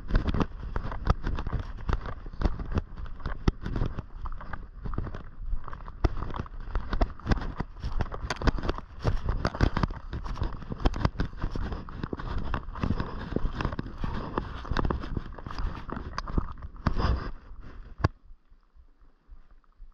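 Footsteps of a person walking on a trail: a fast, irregular run of steps that stops abruptly about 18 seconds in, leaving only faint wind noise.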